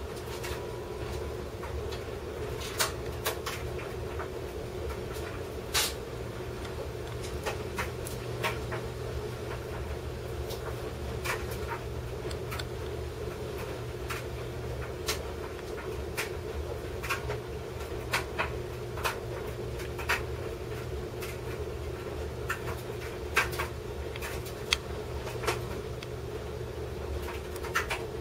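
Small sharp clicks and taps at irregular intervals, every second or two, as a precision screwdriver and small metal tools work the tiny screws of an iPod Touch 3rd generation. Under them runs a steady hum from a laundry machine.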